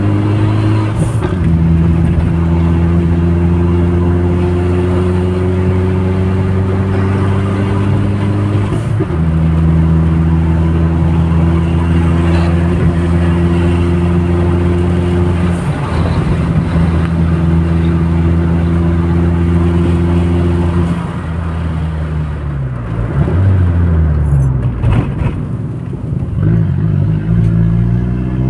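Turbocharged Audi A3 engine, tuned to about 250 hp, running while driving. The engine note holds fairly steady revs with a few brief breaks in pitch. About 21 seconds in the revs fall and waver as the car slows, then rise again near the end as it accelerates.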